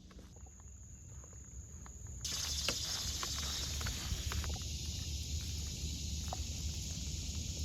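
Outdoor ambience: a steady high hiss comes in suddenly about two seconds in and holds over a low rumble, with a few faint clicks.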